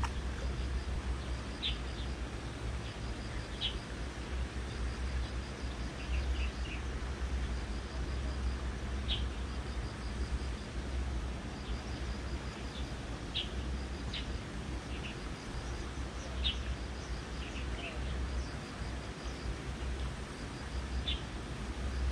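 Small birds chirping: short high chirps every second or two, with runs of rapid high ticks between them, over a steady low rumble.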